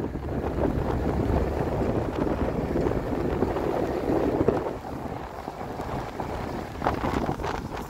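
Wind buffeting the microphone of a phone carried on a moving motor scooter, a steady rushing rumble that eases a little about five seconds in.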